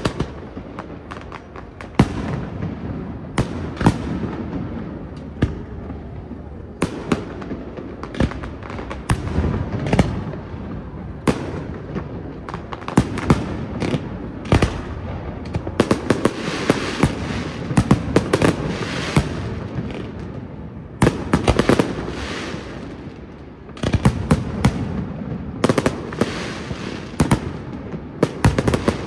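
Aerial fireworks display: shells bursting in a rapid, irregular series of sharp bangs, with denser stretches of quick pops past the middle and again toward the end.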